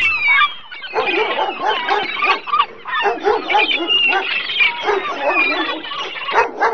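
Several dogs barking at once in a dense, overlapping chorus that cuts off abruptly near the end.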